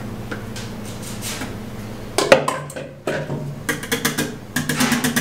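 A wire balloon whisk clanks loudly against a stainless steel pot about two seconds in, then clicks and scrapes rapidly against the pot's side and bottom as meringue is stirred into a custard ice cream base.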